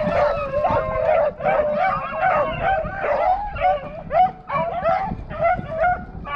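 A pack of rabbit hounds baying together, many overlapping howling and yipping voices: the dogs are in full cry, running a rabbit's trail.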